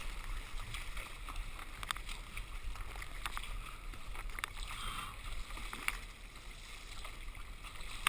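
Choppy sea water sloshing and splashing around a surf ski as it is paddled through sloppy, confused chop, with scattered short splashes over a steady low rumble.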